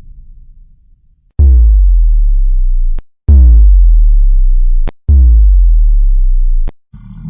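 Three identical synthesized deep bass hits, spaced about two seconds apart. Each has a fast falling pitch sweep and a loud held sub-bass tone about a second and a half long, which cuts off abruptly. It is a drum-machine-style boom or bass-drop sound effect. A rumble fades out before the first hit, and a new noisy sound rises near the end.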